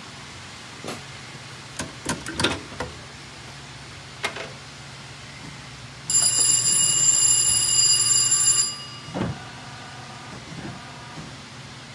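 A few sharp metallic clicks and knocks, then a loud, steady electric warning bell ringing for about two and a half seconds before cutting off, the signal a Heidelberg MOVP offset press gives before it turns over; a fainter lower machine hum follows.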